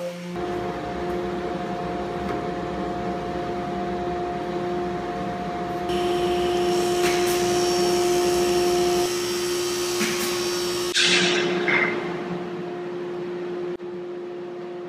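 Woodshop machinery running: a steady motor hum with a fixed whine, joined about six seconds in by a harsher hiss as a plywood panel is fed through a table saw with a dust-extraction hose. There is a short loud burst about eleven seconds in.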